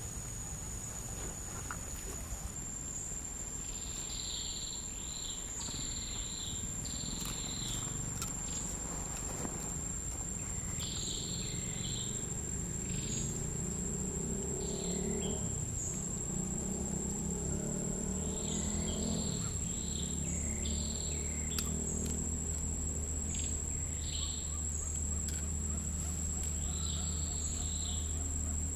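Insects calling: a steady high-pitched whine throughout, with short calls repeating every second or so in groups, over a low rumble.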